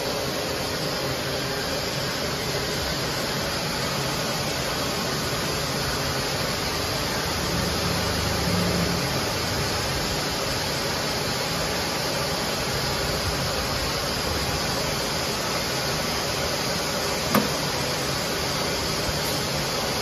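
Plastic hose extrusion line running: a steady hiss and low hum of its motors, with one sharp click about three-quarters of the way through.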